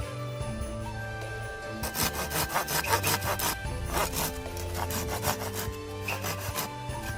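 Hand saw cutting wood, a quick run of back-and-forth strokes starting about two seconds in and stopping shortly before the end, over background music.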